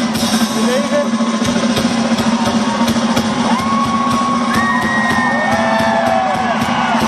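Live rock concert heard loud through a phone's microphone: the band playing with drums, and the crowd cheering and whooping over it.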